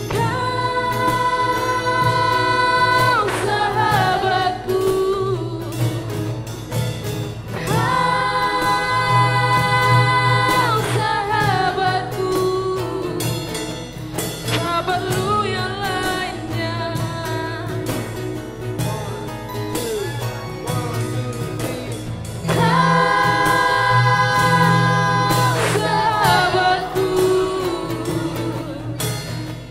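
A song sung by several voices together over instrumental backing. The singers hold a long note three times, near the start, about a third of the way in and near the end, and each held note gives way to a run of shorter notes that falls in pitch.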